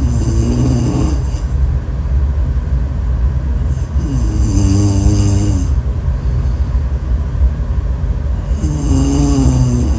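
A person snoring in a slow rhythm: three buzzing snores, about four to five seconds apart, each with a whistly hiss on top, over a constant low rumble.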